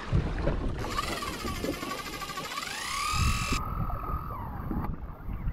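Fishing reel drag screaming as a hooked wahoo (ono) strips line on its run. It starts about a second in, a high whine that rises and falls in pitch, then carries on fainter and falling.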